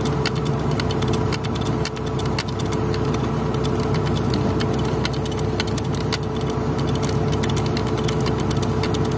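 Excavator's diesel engine idling steadily, with light metallic clicks from a hand-lever grease gun being pumped into a pin joint on the arm.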